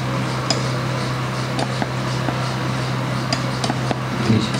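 Glass conical flask swirled by hand under a burette during a sodium hydroxide titration, giving light, irregular glass clinks and ticks. A steady low hum runs under it.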